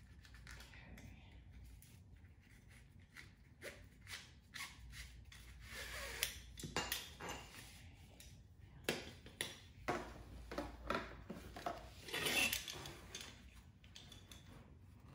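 Nylon seat-belt strap being loosened and threaded, the webbing sliding and rubbing through its metal adjuster. There are scattered clicks and clinks of the buckle, and a longer scraping pull of the strap near the end.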